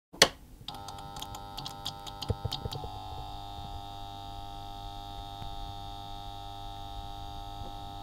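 Electronic intro sting: a sharp hit, then a held synthesizer chord with a quick flurry of short, bright strikes over its first two seconds, the chord then sustaining steadily.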